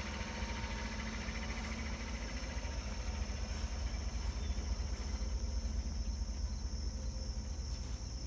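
2015 Chevy Silverado pickup's engine idling with a steady low rumble, while crickets chirp in a steady high trill that grows clearer in the second half.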